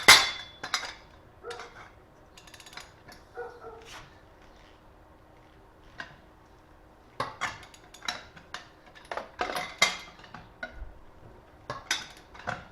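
Metal clanks and clinks of a hand lug wrench working the wheel's lug nuts, breaking them loose by hand. The clanks come in a burst at the start and again in a busier run in the second half, with a quieter stretch between.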